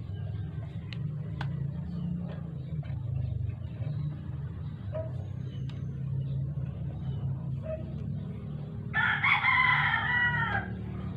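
Small root-crop grater's 200 W single-phase electric motor running with a steady low hum as root pieces are pressed against its spinning grating drum. About nine seconds in, a rooster crows loudly for about a second and a half.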